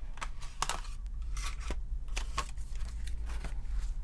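Clear plastic clamshell packaging crackling and clicking as it is pried open by hand, a string of short irregular clicks.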